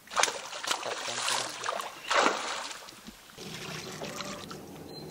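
Water splashing and swishing in several short bursts, strongest near the start and about two seconds in. From about three and a half seconds in, a steady low hum takes over.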